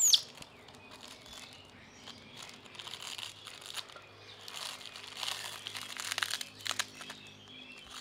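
Plastic snack packet crinkling and rustling in a baby monkey's hands as it handles the packet and picks food from it, in irregular crackling bursts from about two and a half seconds in. A short high falling squeak sounds at the very start.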